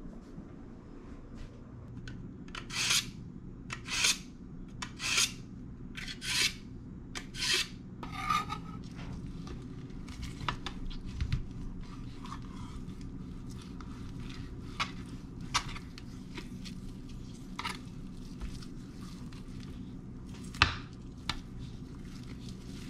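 About six rasping strokes, evenly spaced a second apart, in the first part. Then a knife cuts a raw pork butt on a plastic cutting board, with quiet scrapes and light knocks and one sharp knock of the blade on the board near the end. A low steady hum runs underneath.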